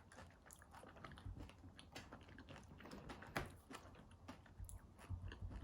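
Someone chewing a Dubai chewy cookie close up: faint, irregular crisp crackles from its crunchy kadaif and pistachio filling, with one sharper crunch about three and a half seconds in.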